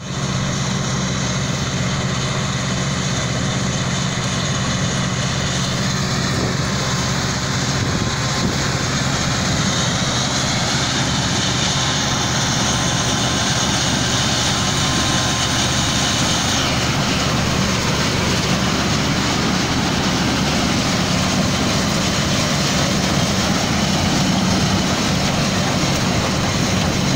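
An old Fendt tractor's diesel engine runs steadily under load, pulling a John Deere pull-type combine harvester, with the combine's threshing machinery running alongside in a continuous mechanical din.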